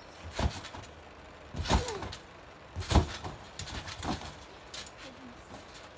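Thumps of children landing on a trampoline mat: four irregular impacts roughly a second apart, the loudest about three seconds in.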